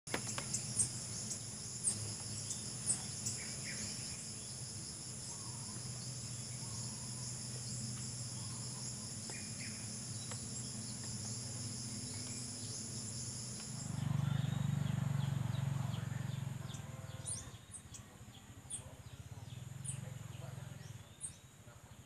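Outdoor insect chorus: steady high-pitched trilling, with short high chirps about once a second and a low hum underneath. About two-thirds of the way through, the trilling thins out and a louder low rumble comes in for a few seconds.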